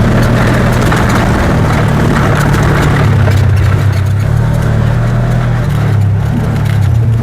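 DJI Air 2 drone's propellers and motors running in flight, picked up by a lapel mic mounted on the drone: a loud, steady hum whose low pitch shifts up and down in small steps as the motors adjust, with rushing air over the mic.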